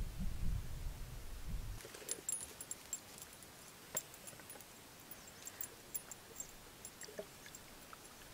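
Wind rumbling on the microphone for about the first two seconds, then scattered small clicks and taps of a plastic water bottle and its cap being handled at the water's edge, one sharper click about four seconds in.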